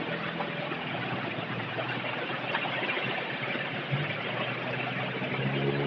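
Street traffic heard from a moving bicycle: a steady rushing hiss of road and air noise with the low hum of motor-vehicle engines nearby, one engine growing louder near the end.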